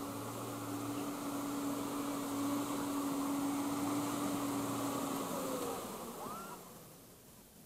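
Chiva bus's diesel engine droning at a steady pitch as it labours through the mud, pouring black smoke; the drone fades out about six seconds in.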